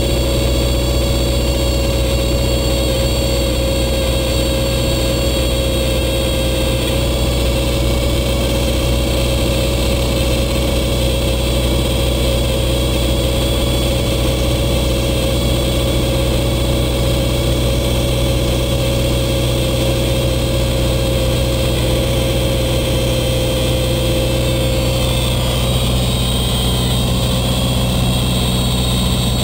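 Beechcraft Sundowner's engine and propeller droning steadily in the cabin, with the stall warning horn screeching as one steady high tone: the plane is flying slowly just above stall speed. The horn tone fades out near the end.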